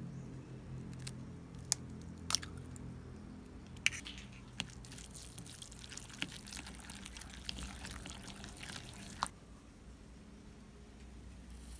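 An egg broken open over a ceramic bowl of mashed tofu, then stirred into the mash with a wooden spoon. A few light clicks come first, then about five seconds of wet squelching and scraping with small knocks of the spoon on the bowl, which stops suddenly with one tap.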